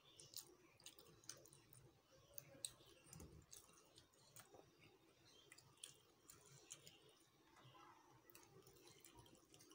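Faint, scattered clicks and wet squelches of fingers mixing and scooping rice on a steel plate, with quiet chewing.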